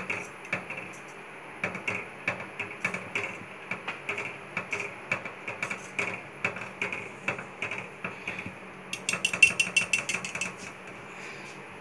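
Wire whisk clicking against the sides of a stainless steel pot while stirring custard into milk, several light taps a second. The tapping gets faster and louder for about a second and a half near the end.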